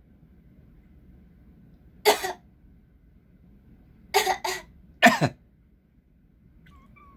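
A person coughing: one cough about two seconds in, a quick double cough around four seconds, and another a second later.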